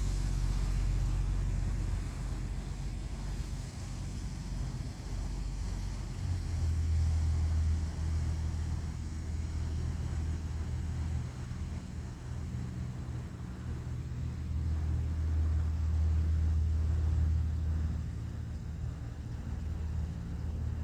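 Low rumble of a boat engine running on the water, swelling louder twice as it draws nearer and falls back.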